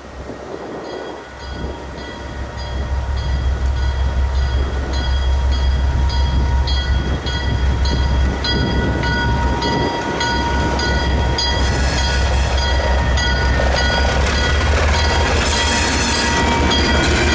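ALCO diesel switcher No. 151's turbocharged six-cylinder 539 engine, working as the train runs by, growing louder over the first few seconds and then holding steady. A high ringing repeats about twice a second over the engine.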